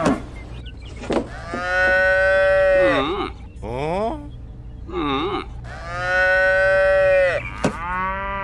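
Cattle mooing: a run of calls, two of them long and held for about a second and a half each, with shorter moos between.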